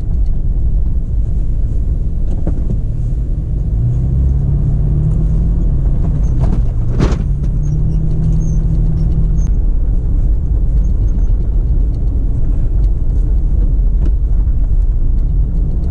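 Toyota FJ Cruiser's 4.0-litre V6 and its tyres driving over a snowy dirt road, a steady low rumble heard from inside the cab. An engine drone comes up about three and a half seconds in and fades near the ten-second mark, with a single knock about seven seconds in.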